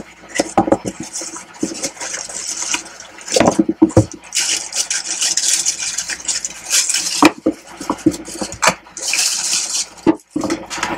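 A new hair dryer being unpacked and handled: crinkling of plastic wrapping and the cardboard box, with irregular clicks and knocks, the longest stretches of crinkling about four to seven seconds in and again near nine seconds.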